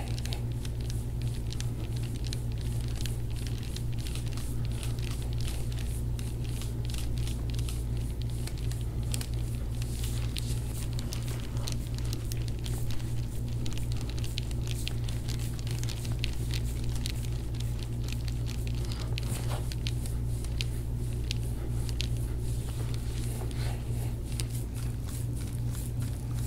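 Soft, continual crackling and rustling of a forearm-and-elbow deep-tissue massage pressing and working over a bare back on a padded treatment table, over a steady low hum.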